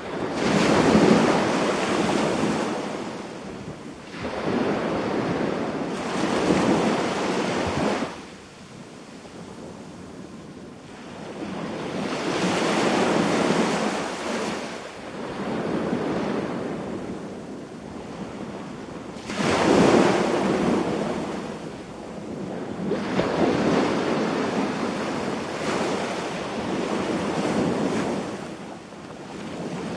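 Sea waves breaking and washing up the beach in uneven surges every few seconds, each swelling and then falling back, with a longer lull about a third of the way in.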